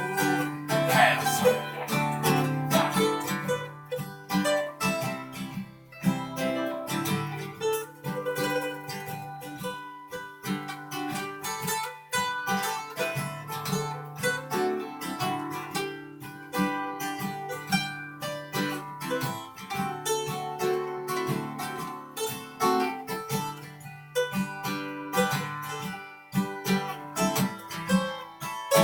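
Acoustic guitar playing an instrumental interlude between sung verses, a run of quick plucked notes over a steady bass line.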